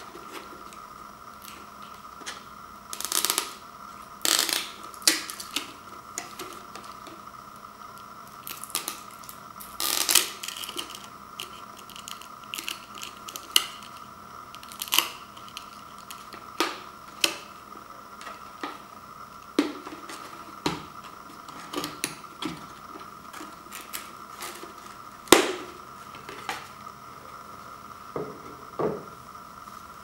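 Cardboard and plastic packaging being handled and pulled off a plastic microwave popcorn popper: irregular crinkles, scrapes and light taps, with a steady faint hum underneath.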